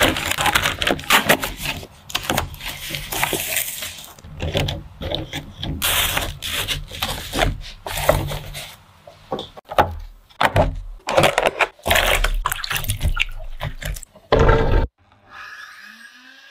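Clear plastic packaging bags crinkling and rustling as they are handled in a cardboard box, with scrapes and knocks of the cardboard box being shut and slid across a table. The handling noises come in irregular bursts, then fall away to a faint sound about a second and a half before the end.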